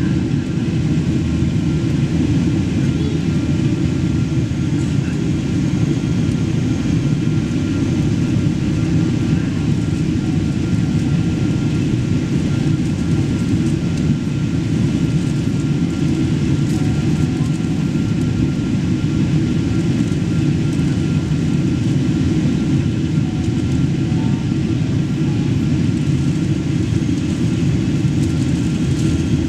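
Cabin noise inside a Boeing 777-200 airliner in flight: the even, low drone of its engines and the rush of air past the fuselage, with a faint thin steady tone above it.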